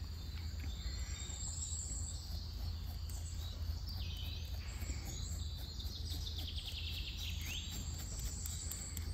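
Outdoor woodland ambience: birds chirping and insects calling over a steady low rumble, with short runs of chirps about four seconds in and again near the end.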